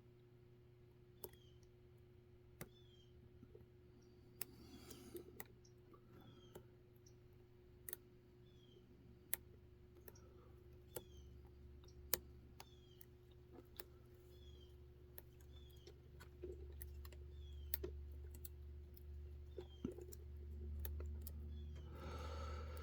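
Faint, sharp clicks of lock picks and a tension wrench working inside a wafer-core trailer coupler lock, about one every second and a half, while the picker keeps oversetting the wafers.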